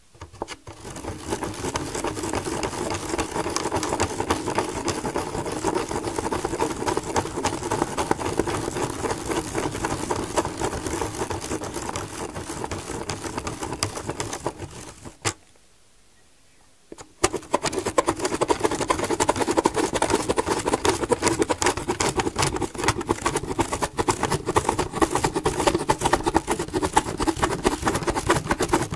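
Spirograph drawing: a pen tip scratching around the paper as the plastic gear wheel rolls inside the toothed ring, a fast, continuous scratchy rattle. It stops for about two seconds a little past halfway, with a single click in the pause, then starts again.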